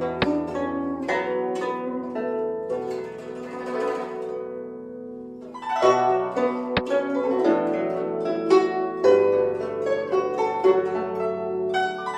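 Background music of plucked string instruments playing a melody, thinner in the middle and fuller again from about six seconds in.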